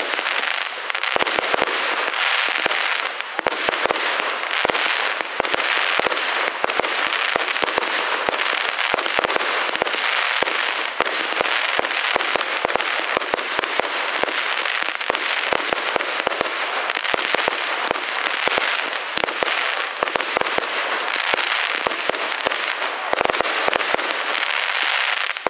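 Aerial fireworks bursting in quick succession: a dense, continuous crackle of many sharp pops and bangs every second.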